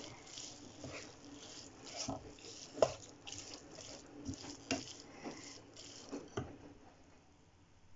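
Wooden spatula stirring and scraping a dry spinach and coconut stir-fry around a nonstick frying pan: irregular scrapes and light knocks, with one sharper knock about three seconds in, growing quieter near the end.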